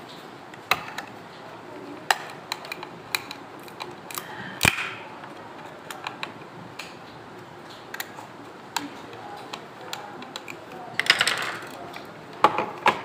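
Irregular small clicks and taps of a screwdriver working the screws of a plastic switch-box cover plate, with hands handling the box and its cables. A louder knock comes about four and a half seconds in, and the clicks bunch together near the end.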